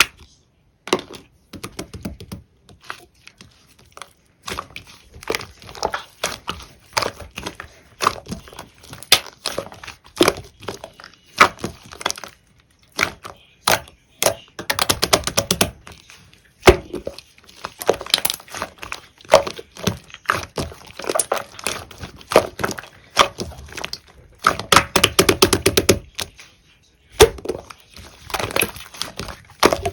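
Black slime being squeezed, poked and stretched by hand, making irregular sticky clicks, pops and crackles, with bursts of rapid crackling about a third of the way in and again about five-sixths of the way in.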